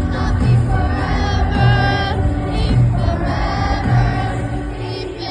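Music with several singing voices over a low, steady beat.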